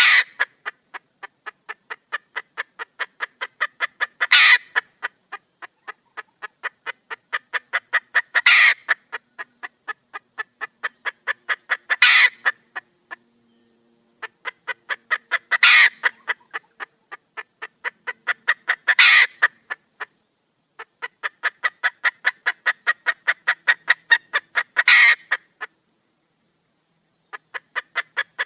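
Red junglefowl hen (wild hen) calling for a mate: runs of rapid short clucks, several a second and growing louder, each ending in one loud harsh call, repeated about every four seconds, six or seven times, with two brief pauses.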